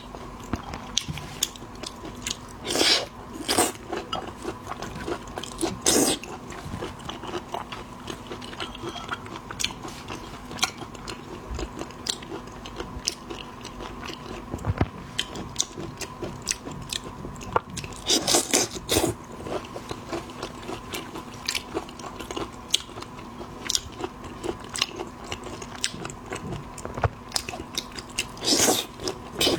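Close-miked eating of shellfish: steady clicking bites and chewing, with louder crunching and crackling of shell four times or so.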